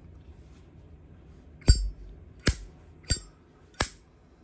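Zippo lighter lid clicking open and shut: four sharp metallic clinks with a short high ring, spaced a little under a second apart.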